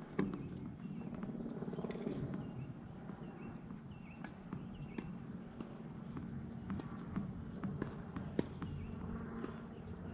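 Tennis balls bouncing on a hard court and struck by rackets: scattered sharp pops at irregular intervals, over a steady low hum.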